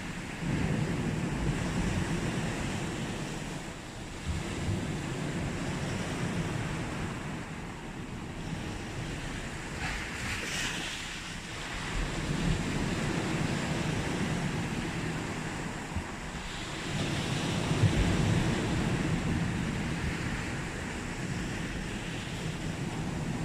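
Sea waves breaking and washing up the beach in slow, repeated surges. There is a brief, sharper hiss about ten seconds in.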